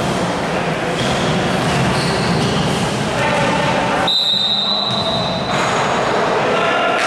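Basketball game noise in a gym: a steady din of court sounds and voices with short high sneaker squeaks, and one long, steady, high whistle blast about four seconds in.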